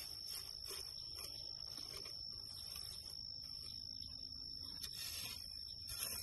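Dry grass clippings rustling and crackling as they are pressed down by hand into a plastic bucket, packed layer by layer to force out the air. Behind it runs a steady high-pitched insect trill.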